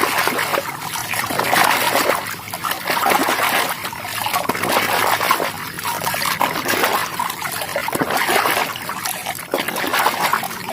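Water splashing and trickling in uneven surges as a muddy toy is washed.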